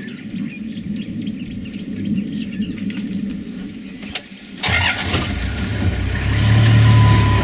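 Birds chirp over a low hum. About halfway through, a vehicle engine starts with a sudden jolt and keeps running, growing louder.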